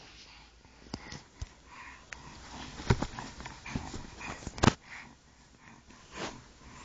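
A baby making soft breathy noises and scattered sharp mouth clicks, the loudest clicks just before 3 s and near 4.7 s.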